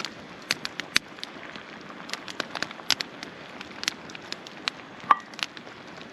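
Wood campfire crackling, with many irregular sharp pops and snaps over a steady hiss. A brief high squeak about five seconds in is the loudest moment.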